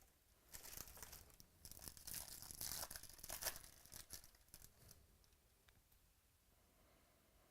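A foil trading-card pack wrapper being torn open and crinkled, a few seconds of tearing and rustling that starts about half a second in and dies away by about five seconds.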